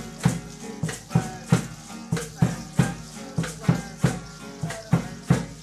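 Live dance music: a steady beat of a little over two strokes a second with shaken rattles, and strummed guitar between the beats.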